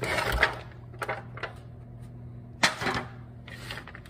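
French fries tipped out of an aluminium foil tray onto a metal sheet pan: a brief clatter with foil crinkling, then scattered light taps and one sharper knock a little before three seconds as they are spread out by hand.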